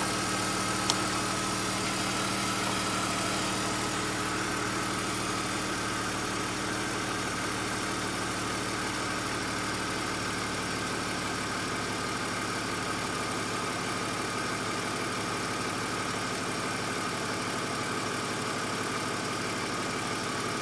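BMW X5 engine idling steadily with the air conditioning switched on, while the electric radiator cooling fan stays silent: the fan has failed even though it is getting current. A single sharp click about a second in.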